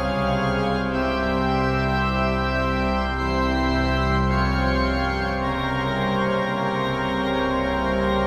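Background music: slow, held organ chords that change every second or so at a steady level.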